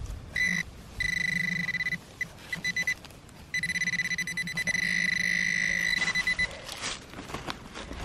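White's TRX Bullseye metal-detecting pinpointer sounding a steady high beep: short beeps and chirps, with a longer tone about a second in and a longer one still from about three and a half to six and a half seconds in, as it closes on a buried target that turns out to be a lead musket ball. Light scraping of soil and leaf litter comes between the tones.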